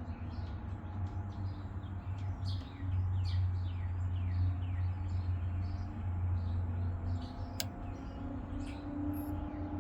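Steady low electrical hum from a battery-fed inverter trying and failing to start, swelling from about three to seven seconds in, with a faint tone creeping upward near the end. Birds chirp in short falling notes over it, and there is one sharp click about three quarters of the way through.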